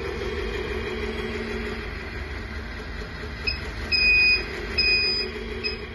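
An RC truck's electronic sound module playing a simulated truck engine running steadily through a small speaker. A little past halfway it adds two loud high-pitched electronic beeps under a second apart, with short chirps just before and after.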